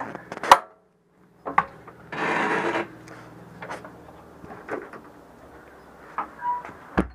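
Wood and fittings of a boat's outboard-well locker being handled: a few light knocks and clicks, a scrape lasting under a second about two seconds in, and a low thump near the end.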